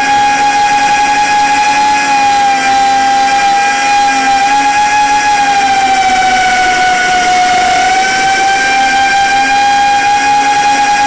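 Whine of a 4-inch FPV quadcopter's brushless motors and propellers in flight, one steady high tone with overtones that sags a little in pitch about seven seconds in, then rises back as the throttle comes up again.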